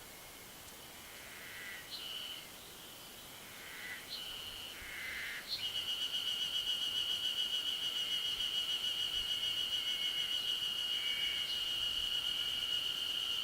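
Ezo spring cicadas calling. A faint steady chorus and a few short chirps give way, about five and a half seconds in, to one loud, high, continuous song that pulses about three times a second.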